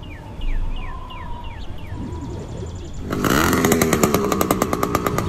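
A bird chirps repeatedly with short falling notes. About three seconds in, a small two-stroke gas bicycle engine (80cc kit type) approaches and goes past close by, running loud with a fast, even pulsing from its exhaust.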